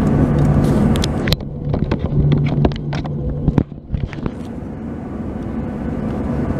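Boeing 737-800 cabin noise while taxiing: the CFM56 engines' steady hum with a low drone. From about one and a half to four seconds in, the hiss drops away and a run of clicks and knocks comes through.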